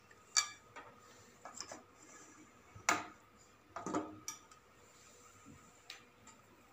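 Aluminium pressure cooker lid being twisted loose and lifted off the pot: a few light metallic clicks and knocks, the loudest about three and four seconds in.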